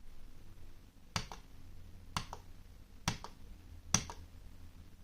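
Plastic button of a wired Rii gaming mouse clicked four times, about once a second, each a quick press-and-release double click.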